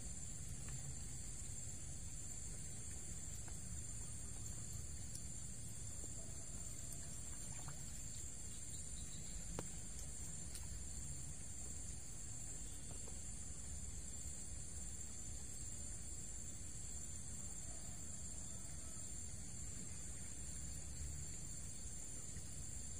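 Steady high-pitched insect chorus, cricket-like, over a low steady rumble of the riverside.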